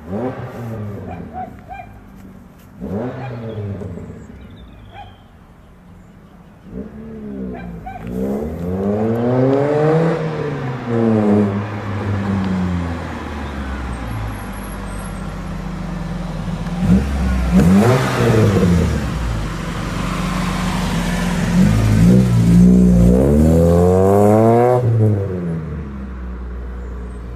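VW Golf Mk1's four-cylinder engine, breathing through a Magnaflow stainless exhaust, revving hard through the gears several times, its pitch climbing and then dropping at each shift. It is loudest as the car goes by, after the middle, then fades as it pulls away.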